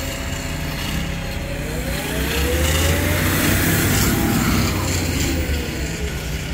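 A motor vehicle passing on the street, its engine noise swelling to its loudest about three to four seconds in and then easing off, with a pitch that rises and falls as it goes by.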